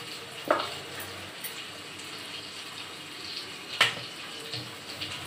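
Rolling pin working puri dough on a metal plate, with two sharp clicks of the pin against the plate over a steady hiss.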